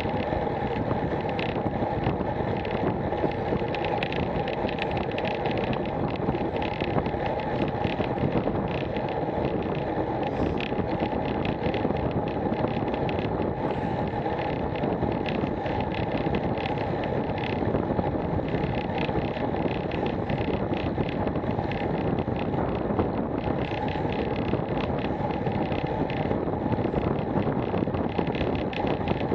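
Steady wind rush buffeting a Garmin VIRB action camera's microphone, mixed with tyre and road noise from a bicycle riding on tarmac at about 21 mph.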